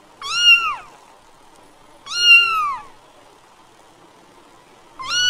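A domestic cat meowing: two short meows, each rising then falling in pitch, about two seconds apart, then a longer drawn-out meow beginning near the end.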